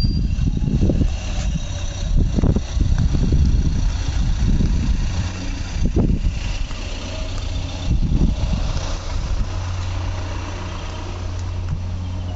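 Porsche 996 Carrera 4S's 3.6-litre flat-six idling steadily, with uneven low rumbles over it that are heaviest in the first half.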